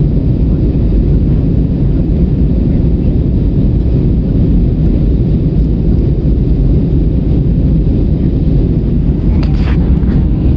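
Jet airliner cabin noise during the climb after take-off: a steady, deep rumble of engines and airflow. A brief handling rustle near the end.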